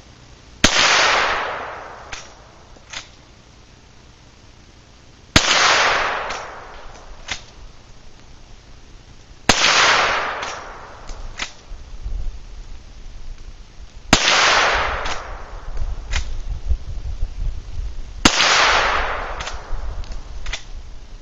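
Five shots from a Henry Big Boy Steel lever-action rifle in .41 Remington Magnum, about four to five seconds apart, each with a loud crack and an echo that fades over a second or so. A few lighter clicks follow each shot.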